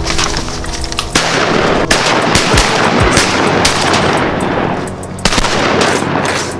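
A loud volley of rapid, overlapping gunshots starts about a second in. It eases briefly a little after five seconds, then picks up again.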